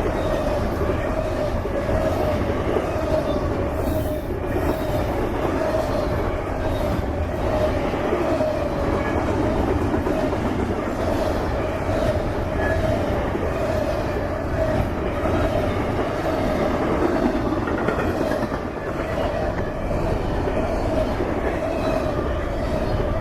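Freight train cars rolling past steadily, a continuous rumble with the clickety-clack of wheels over the rail joints and a steady, wavering ring from the wheels on the rails.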